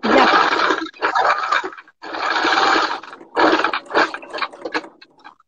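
Domestic sewing machine stitching a seam in three runs of about a second and a half each, with brief stops between them, then only scattered small noises near the end.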